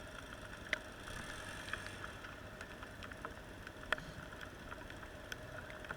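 Faint, steady hum of a vehicle engine running, with scattered light ticks.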